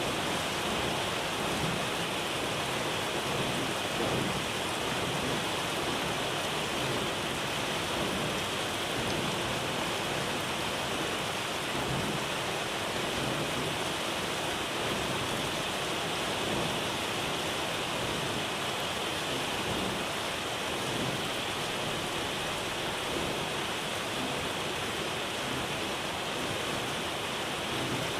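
Heavy rain pouring onto the sea surface: a steady, dense hiss.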